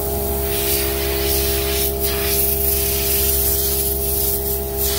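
Compressed air hissing from a small pneumatic blow nozzle, blown in uneven surges through a car's radiator fins to clear out dust, over a steady hum.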